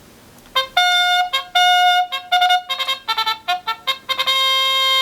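Electronic trumpet fanfare played from a children's press-button sound book's speaker: a run of short notes, then one long held note near the end.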